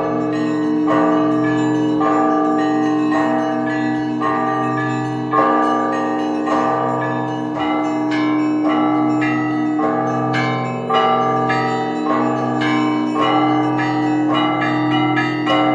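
Russian Orthodox church bells rung in a continuous peal: small bells struck rapidly in a rhythm over the long ringing of larger, deeper bells.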